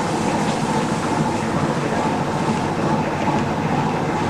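A fishing boat's engine running with a steady, even drone, heard from inside the wheelhouse, with a faint steady whine on top.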